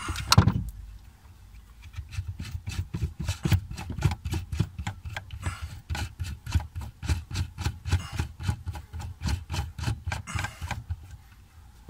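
Gear train of a BMW E65 electronic parking brake actuator being turned by hand, giving a run of short rasping clicks, about four a second, as the shaft slowly unscrews the spindle. A single knock comes just at the start.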